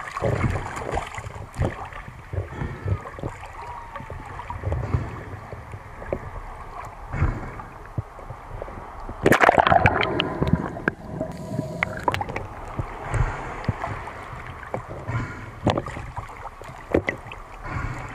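Sea water splashing and sloshing in irregular bursts, louder for a second or so about nine seconds in.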